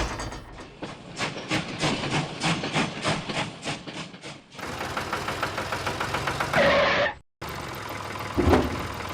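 Mini tractor's engine running with a regular knocking beat of about three to four strokes a second. It changes to a busier running sound partway through, cuts off abruptly, and returns as a steady hum with a single thump near the end.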